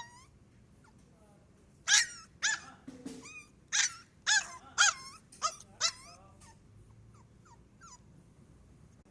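Pomeranian puppy giving a run of about eight short, high-pitched yipping barks starting about two seconds in, followed by a few faint small yips.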